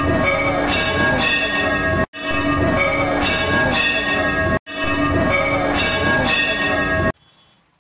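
Bells ringing densely in a loop that repeats about every two and a half seconds, broken by brief dropouts, and cutting off about seven seconds in.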